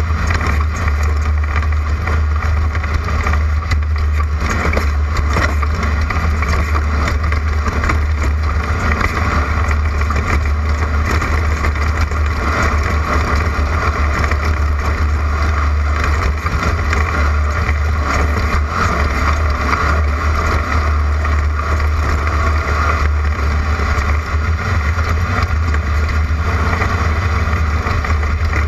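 Class 11 stock Volkswagen Beetle desert race car's air-cooled flat-four engine running steadily under load at speed, with loud, continuous wind and road noise.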